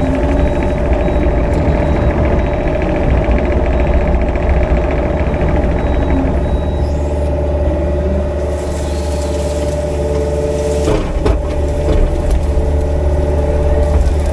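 Mini excavator's diesel engine running steadily as it works a rake through brush, with a brief hiss about eight seconds in and a sharp knock about eleven seconds in.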